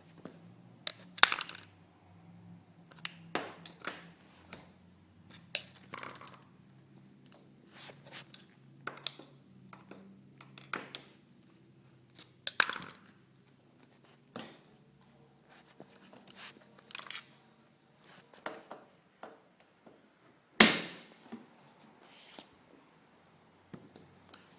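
Irregular metal knocks, clicks and scrapes of a screwdriver prying at a walk-in cooler door's hinge to release its spring lock, with a sharp knock about a second in and another near the end. A faint low hum sits under the first half.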